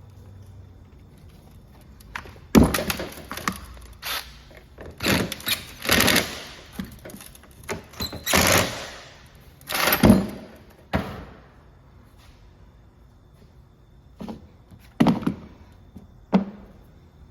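Irregular knocks and thunks with a few short scraping sounds: tools and parts being handled during work on an Echo string trimmer's clutch. The knocks come in a busy run over the first ten seconds or so, then a few more near the end.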